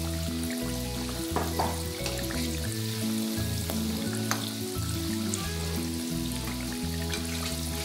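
Coconut biscuits sizzling as they deep-fry in hot oil, with a spatula stirring and turning them in the pan. Background music with a stepping bass line plays over it.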